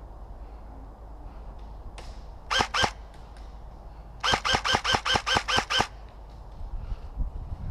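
Airsoft rifle fired in quick single shots: a pair of sharp shots, then a rapid string of about eight at roughly five a second.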